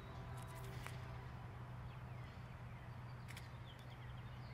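Quiet outdoor ambience: a steady low hum with a few faint high chirps, likely birds.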